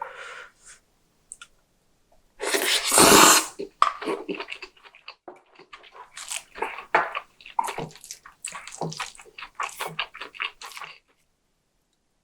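Close-miked eating sounds: one loud, wet slurp about two and a half seconds in, then a long run of short, irregular wet chewing and smacking sounds that stop about a second before the end.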